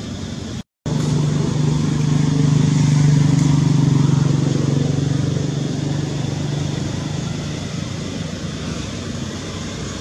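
An engine running steadily, its hum growing louder in the first few seconds and fading over the second half. The audio cuts out completely for a split second just under a second in.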